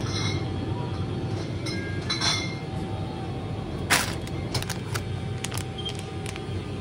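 Snack shopping handled by hand: several short clicks and knocks of plastic packaging and cans moving in a plastic shopping basket, over a steady low hum.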